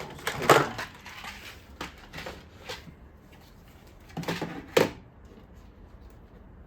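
Things being moved around and set down on a work table: scattered knocks and rustling, with the loudest knocks about half a second in and again near five seconds.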